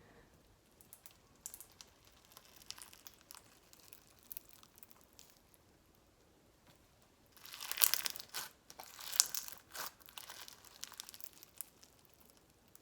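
Bingsu slime, a clear slime packed with small plastic beads, being squished and pressed by hand, giving a crackling crunch. Faint scattered clicks at first, then a louder stretch of crunching lasting two or three seconds a little past halfway.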